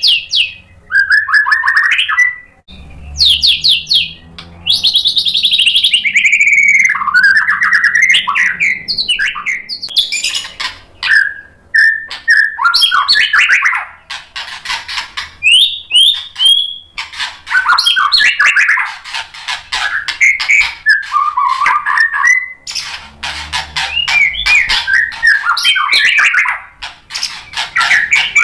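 White-rumped shama singing a long, varied song: fast runs of rapidly repeated notes alternating with sliding whistled phrases, broken by short pauses.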